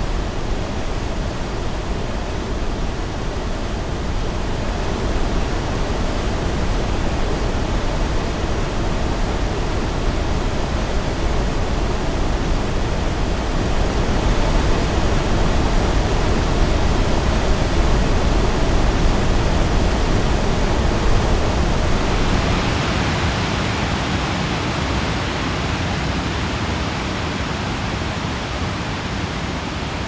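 Steady roar of large Genesee River waterfalls: water crashing continuously into the gorge. About two-thirds of the way through, the roar turns brighter and hissier, with less low rumble.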